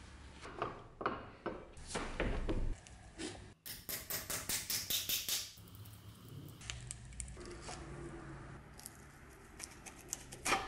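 Hand tools working a cracked wooden handle off an old mortise chisel held in a bench vise. Scattered knocks and clicks are followed by a run of quick strokes about four a second in the middle, then lighter clicks and one sharp click near the end.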